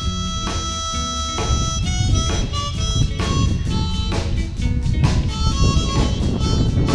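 Background blues music led by a harmonica, with a steady drum beat.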